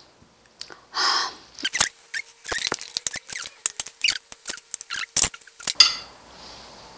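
Metal serving tongs and a spoon clicking and scraping against a serving dish and plate in quick, irregular clicks while salmon papillote is served, after a short hiss about a second in.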